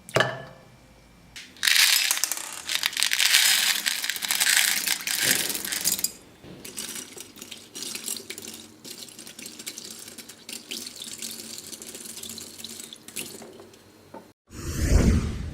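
A dense, water-like patter of many small beads pouring and rattling, thinning to a lighter scattered crackle. A short, louder burst comes near the end.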